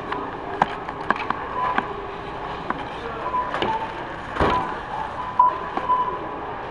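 Checkout-lane noise: several short beeps from a barcode scanner ringing up items, among knocks and clatter of goods being handled, over steady background noise of the store.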